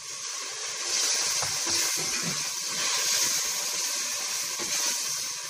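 Water poured into a pot of hot oil and fried onion-tomato masala, hissing and sizzling hard as it hits the oil and throws up steam. The sizzle grows louder about a second in and keeps up steadily.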